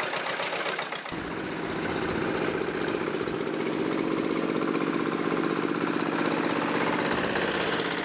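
Single-cylinder diesel engine of a walk-behind power tiller chugging steadily as it pulls a loaded trailer, the sound changing a little about a second in.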